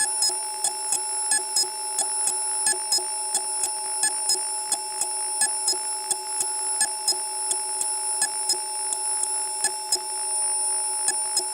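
CNC milling machine cutting metal with an end mill in dynamic milling: a steady high-pitched whine made of several constant tones, with irregular sharp clicks of chips striking throughout.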